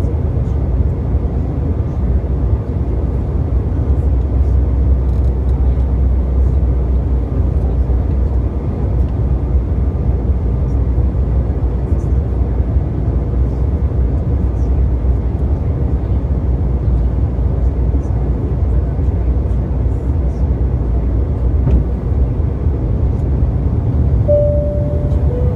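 Steady cabin noise of a jet airliner on approach: the constant rumble of engines and airflow, heaviest in the deep bass. Near the end a brief tone sounds, dropping slightly in pitch.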